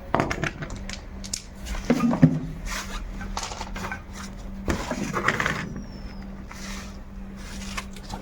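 Metal tools and wheel or brake parts clinking and clanking as they are handled, several separate knocks at irregular intervals over a steady low hum.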